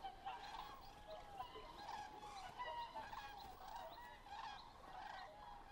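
A flock of whooper swans calling: many short, overlapping calls, faint throughout.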